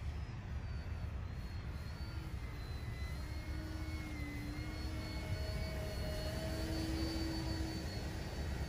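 Electric motor and propeller of an E-flite Turbo Timber Evolution RC plane in flight, a faint whine that drifts slowly in pitch, dipping about four seconds in and rising again, over a steady low rumble.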